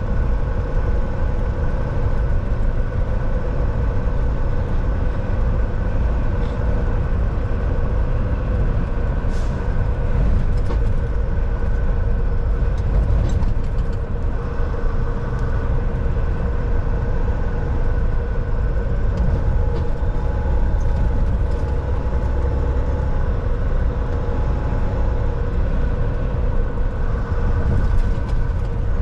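Volvo semi-truck driving, its engine and road noise making a steady low rumble with an even drone.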